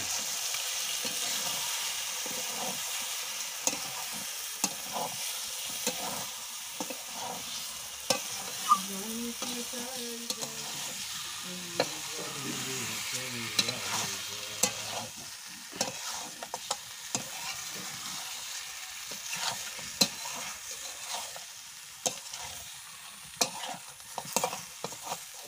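Mutton and potato pieces sizzling in oil in a metal kadai while a spatula stirs and scrapes them, with irregular sharp clicks of the spatula against the pan. The meat is being slow-fried uncovered, the kosha stage of a Bengali mutton curry.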